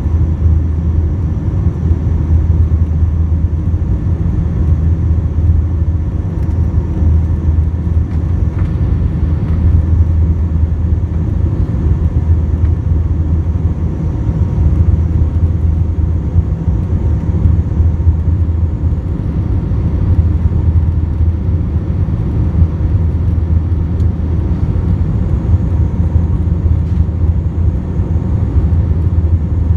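Airbus A320 engine and airflow noise inside the cabin, heard from a window seat over the wing during the climb after takeoff: a loud, steady low rumble with a few faint steady tones above it.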